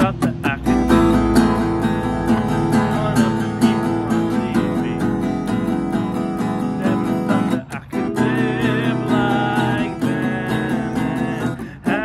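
Acoustic guitar strummed in a steady rhythm with a harmonica playing over it in wavering, held notes; the music briefly drops out twice, between phrases.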